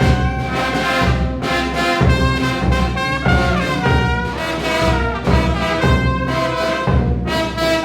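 Mexican banda playing: trumpets and trombones carry held, stacked notes over a steady low pulse of bass and drum.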